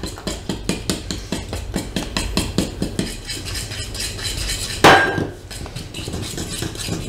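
Wire whisk beating a thick flour batter in a metal mixing bowl, clicking against the bowl about four to five times a second. About five seconds in comes one louder ringing clink of the metal measuring cup.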